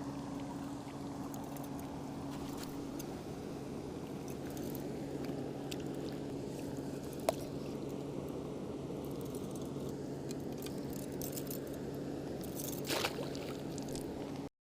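A motor running with a steady low hum, with a sharp click about halfway through and a short scrape near the end.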